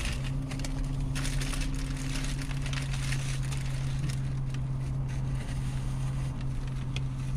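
Chewing and crunching on a burger on toasted Texas toast garlic bread, with the paper wrapper rustling and crackling, most busily in the first few seconds. A steady low hum runs underneath.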